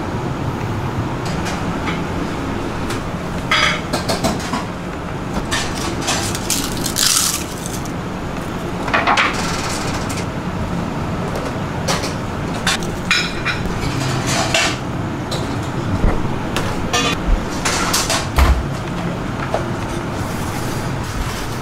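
Restaurant kitchen clatter: scattered clinks and knocks of dishes, spoons and containers being handled over a steady hum of kitchen ventilation.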